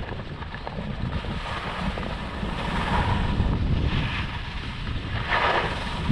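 Wind buffeting the microphone of a skier on the move, a steady low rumble, with skis scraping the snow in a few short hisses, the loudest near the end.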